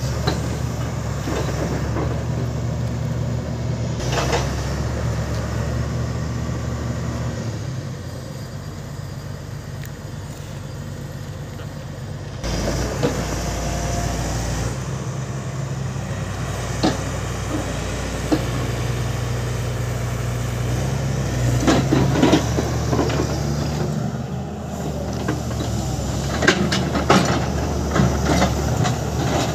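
SANY SY350 crawler excavator's diesel engine running steadily while it digs, its note shifting as the hydraulics take load, with soil and rocks clattering in and off the steel bucket, mostly in the second half.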